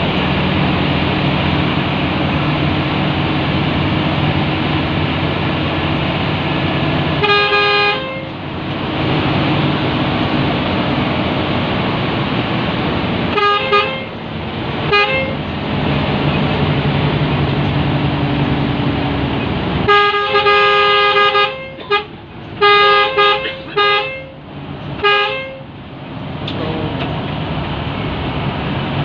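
Bus horn sounding on two notes over the steady drone of the bus running at speed. There is one blast about seven seconds in and two short toots around halfway, then a longer blast followed by a quick string of short toots in the last third.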